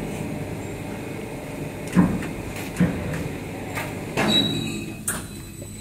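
Wide belt sander running, a steady mechanical rumble broken by a few sharp knocks and clatters.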